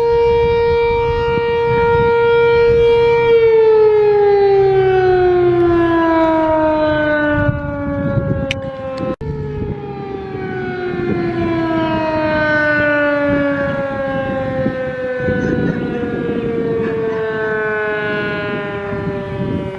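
Sentry 3V8-H electromechanical outdoor warning siren holding a steady tone for about three seconds, then sliding down in pitch. After a sudden break about nine seconds in, it is heard gliding down in pitch again.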